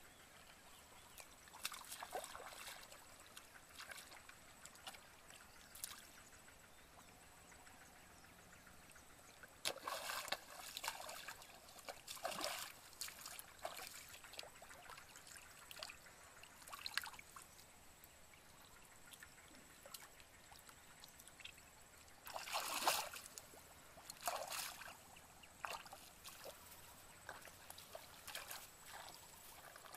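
Shallow muddy paddy water splashing and sloshing in irregular bursts as someone wades through it and gropes in it by hand for fish.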